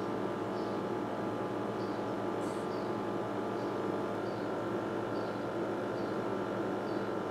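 Steady background hum with faint short high chirps about once a second and a brief hiss about two and a half seconds in.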